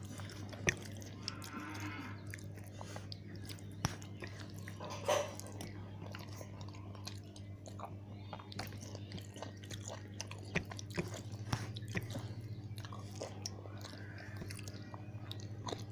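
Close-miked chewing and mouth clicks of a person eating khichuri, scattered small clicks and smacks over a steady low hum.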